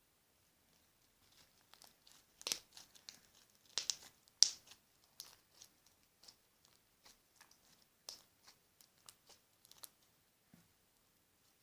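Slime being stretched and squished by hand, giving irregular crackling pops as air pockets burst, loudest a few seconds in and thinning out near the end.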